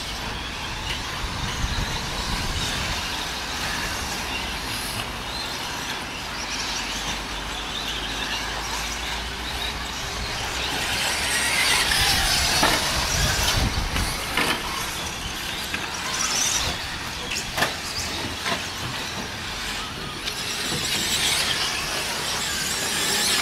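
Electric 1/10-scale 2wd short-course RC trucks racing on a dirt track, their motors and tyres making a whirring hiss that swells and fades as they pass. It is loudest about eleven to fourteen seconds in, with a few sharp knocks along the way.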